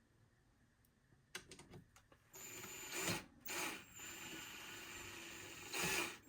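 Power drill/driver backing screws out of a small metal melting furnace's casing. A few light clicks come first, then the motor runs steadily from a little past two seconds in, louder briefly a few times.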